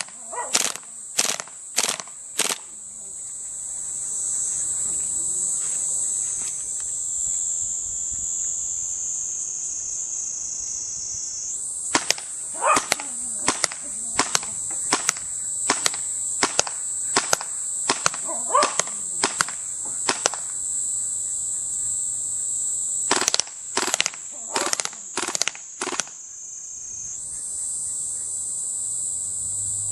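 Maruzen Ingram M11 gas blowback airsoft submachine gun firing single sharp shots in three strings: a few at the start, a long string of about fifteen at roughly two a second from about twelve seconds in, and about seven more near twenty-five seconds.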